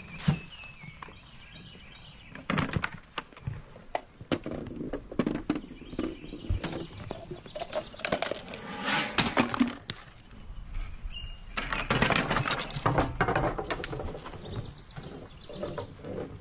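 Balls and parts of a homemade chain-reaction track rolling, knocking and clattering: a string of sharp knocks and clicks, with busier stretches of rattling and scraping about halfway through and again a few seconds later.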